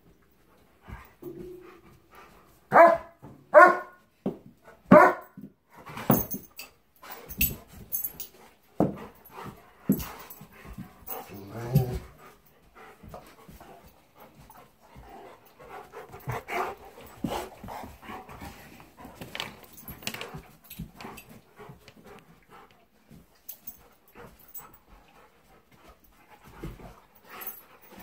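Dogs, a Labrador and a German Shepherd, barking: three loud barks about three to five seconds in, then a string of quieter short dog sounds with clicks and rustling as they move about.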